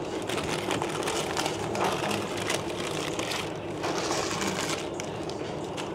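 Paper wrapper crinkling and rustling as it is peeled back from a chicken shawarma wrap, in two spells, over a steady background hum.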